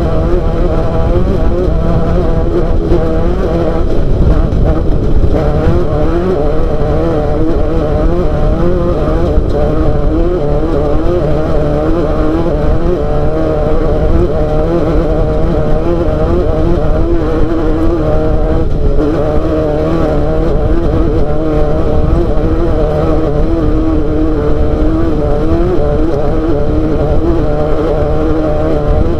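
Off-road race car engine running hard, its pitch wavering rapidly up and down over a heavy low rumble, with a brief drop in revs about two-thirds of the way through.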